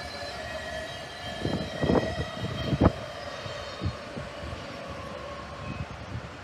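A passing train, its wheels giving a steady squeal of several high tones that fades away toward the end. Several knocks come through in the first half, the loudest nearly three seconds in.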